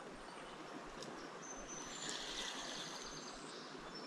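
Steady rush of a shallow creek, with small birds chirping and trilling from about halfway through.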